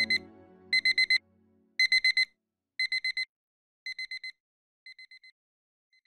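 Digital alarm-clock beep marking the countdown's end: a high electronic beep in quick bursts of four, repeating about once a second and growing fainter over the last few bursts. Soft background music fades out under the first bursts.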